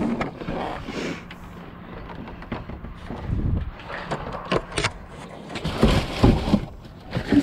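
Rummaging through trash in a dumpster: plastic bags and packaging crinkle and rustle, cardboard shifts, and things knock against the bin, with a few heavier dull thumps about three and a half and six seconds in.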